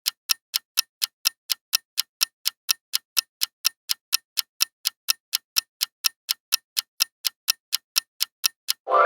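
Ticking countdown-timer sound effect: even, sharp clock-like ticks, about four a second.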